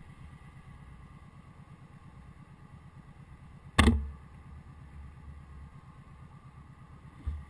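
Motorcycle engine running at low speed with an even low throb. About halfway through comes a sharp knock with a short low thump after it, and a smaller thump near the end.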